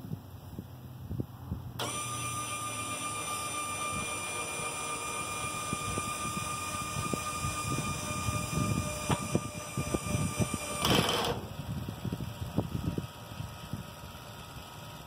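Electric linear actuators of a garden-tractor bucket loader extending under power, a steady electric-motor whine that starts about two seconds in and lasts about nine seconds as the bucket is raised. It ends in a brief rattle near full lift, where the actuators' built-in clutches click and rattle at maximum extension.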